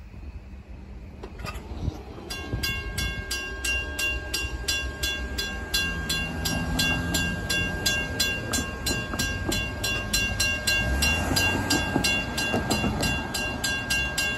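Railroad crossing bell ringing in a steady, even rhythm of about two and a half strikes a second, starting about two seconds in as the crossing gates go up to reopen the road. A car's low rumble passes beneath it near the end.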